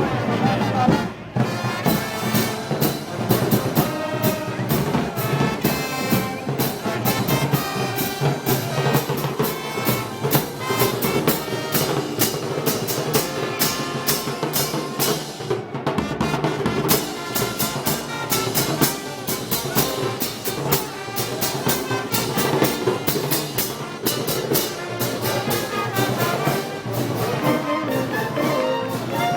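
A festival brass band playing live: trumpets and trombones over a steady beat of drums and cymbals, with two brief breaks, about a second in and about halfway.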